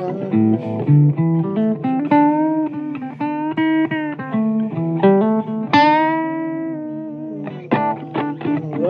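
Blues guitar music playing from a record: plucked guitar notes with string bends over a bass line. About six seconds in, one long note rings and slowly dies away.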